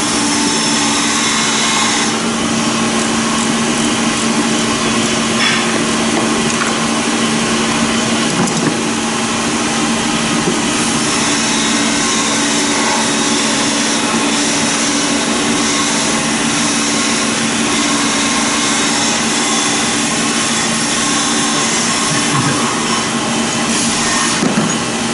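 Steady drone of running machinery: a loud, even hiss with a low two-note hum under it, unchanging throughout.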